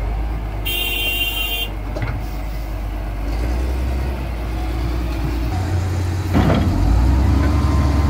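Diesel engine of a wheel loader running steadily as the machine drives, a low rumble that gets louder about five and a half seconds in, with a brief burst of noise soon after.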